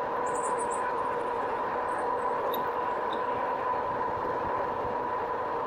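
2018 RadRover electric bike under way: a steady whine from its geared hub motor over a constant hiss of tyre and wind noise.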